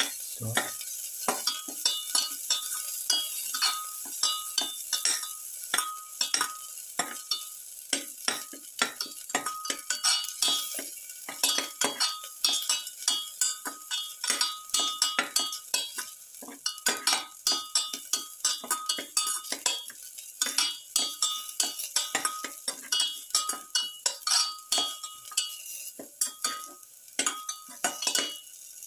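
Garlic cloves and sliced onion sizzling in oil in a metal pan, with a spatula stirring and scraping against the pan in quick, repeated strokes.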